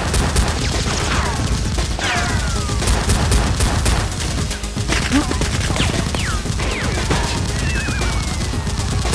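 Rapid bursts of gunfire sound effects laid over Nerf blasters firing, shot after shot with barely a pause. Several short falling whistles cut in between the shots.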